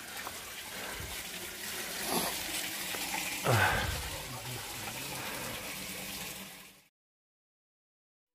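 Steady rushing outdoor background noise. It cuts off abruptly about seven seconds in.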